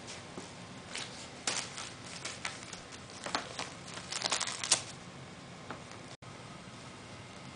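Wrapping paper and ribbon crinkling in short, scattered crackles as a cat bites and paws at them, busiest a little past the middle.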